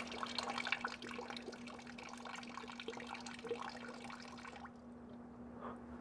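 Water running from the outlet of a home-made copper-pipe water heater into a bucket. It starts suddenly and is shut off after about five seconds: one 'on' phase of a five-seconds-on, five-seconds-off flow test. A faint steady hum runs underneath.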